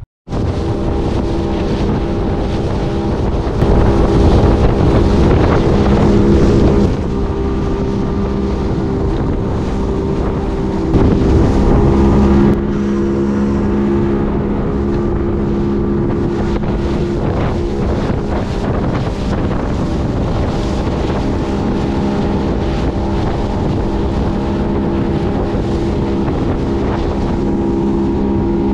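Motorboat engine running steadily under way, with wind buffeting the microphone. It gets louder for a few seconds about four seconds in and again briefly around eleven seconds in.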